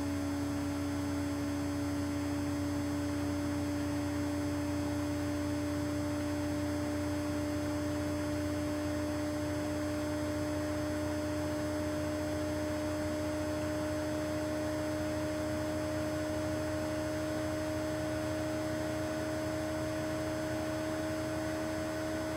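Steady electrical hum with a constant mid-pitched tone and a fainter overtone, unchanging throughout, over faint hiss.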